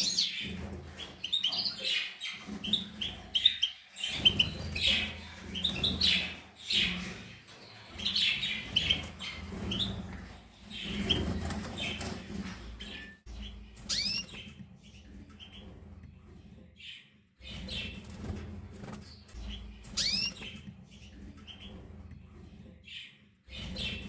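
Caged canaries and European goldfinches chirping: a run of short, high call notes, busy through the first half and sparser after.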